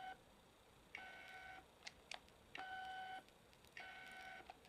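Canon EF-S 24mm f/2.8 STM pancake lens autofocusing over and over: its stepping motor drives the front element in and out with a very quiet whirr and a few faint clicks, each focus ending in a short electronic beep, about three to four times. Very quiet, but not silent.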